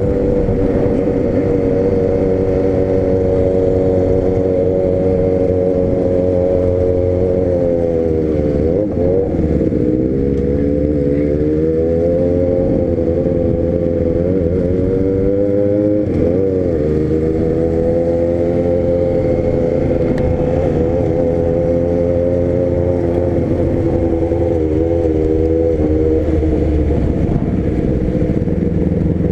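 Honda CB300 motorcycle's single-cylinder engine running steadily under way. Its pitch drops and picks up again a few times as the throttle is eased and reopened.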